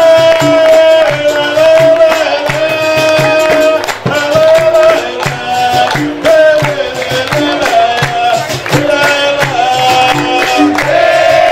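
Capoeira roda music: a sung chorus held on stepping notes over a steady rhythm from berimbaus, an atabaque drum and a pandeiro, with hand clapping.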